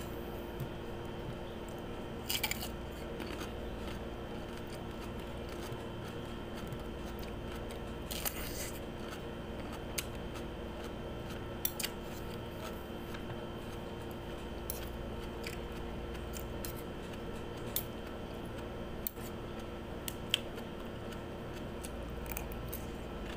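Scattered short, crisp crunches and clicks from cucumber being handled and eaten from a spoon, a dozen or so spread out, over a steady low hum.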